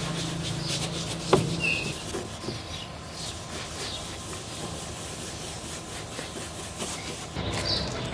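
An old sock loaded with toothpaste rubbed hard in circles over a car's painted door, a steady scrubbing as it polishes out scratches. One sharp tap about a second in.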